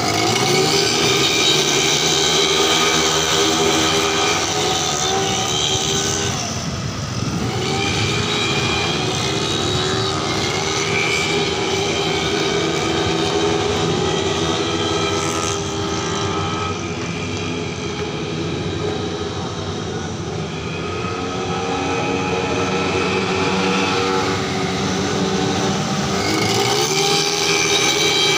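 A pack of 115cc automatic racing scooters running hard around a circuit, several engines at high revs at once. The engines swell as the bikes pass close, near the start and again near the end, and fall back in between as they move away around the course.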